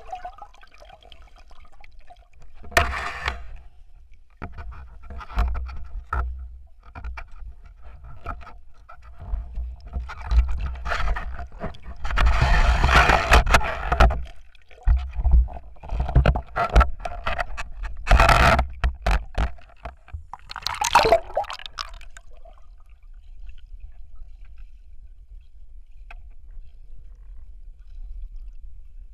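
Muffled underwater noise picked up by a camera in a waterproof housing as a spearfisher swims: a steady low rumble with several louder rushing, bubbling surges of water lasting a second or two, and quieter toward the end.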